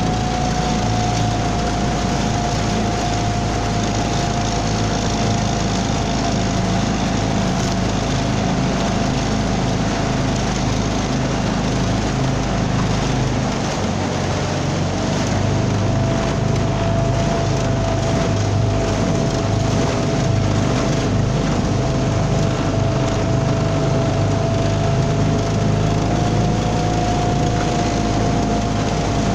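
Small outboard motor of an aluminium jon boat running steadily at low speed, with a steady whine whose pitch drops slightly about halfway and rises again near the end, over a continuous hiss.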